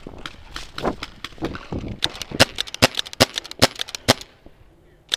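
Paintball markers firing. Scattered pops come in the first two seconds, then a quick string of loud, sharp shots, several a second, which stops about four seconds in.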